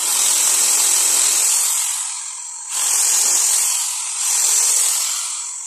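Electric drill with a 6 mm bit boring into a small block of teak. The drilling noise starts abruptly, eases off briefly about two and a half seconds in, picks up again, then tails off toward the end.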